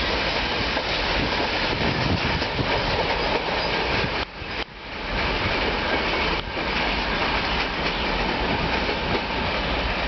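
Empty BCNA covered freight wagons rolling past, wheels clattering steadily over the rail joints, with a brief dip in level about four seconds in.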